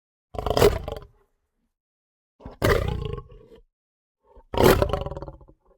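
Saber-toothed cat (Smilodon) roar sound effect: three short, snarling roars about a second apart, each lasting roughly a second and fading out into silence.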